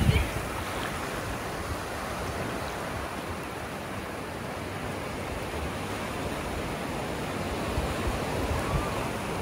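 Ocean surf on a beach: a steady wash of breaking waves.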